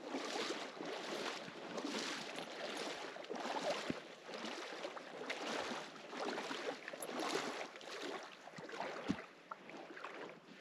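Gusty wind rushing over the microphone and through the grass, rising and falling unevenly, with a couple of soft knocks.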